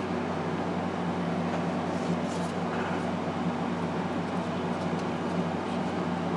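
Steady machine hum over an even hiss, with a few faint light ticks about two seconds in.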